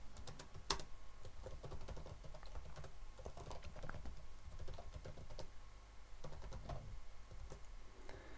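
Typing on a computer keyboard: irregular, unevenly spaced keystroke clicks.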